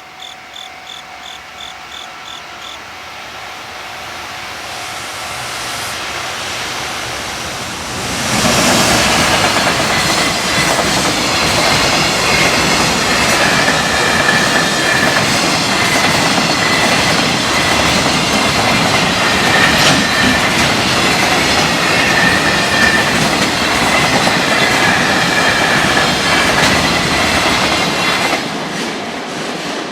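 A level-crossing bell dings rapidly at the start while an electric freight train approaches, growing steadily louder. About eight seconds in, the train passes at speed for some twenty seconds, its wagon wheels clattering over rail joints in a dense clickety-clack, and the sound falls away near the end.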